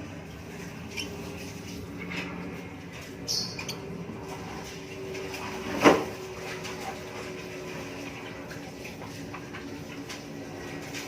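Faint calls of one-week-old lovebird chicks over a steady low hum, with a sharp knock about six seconds in that is the loudest sound.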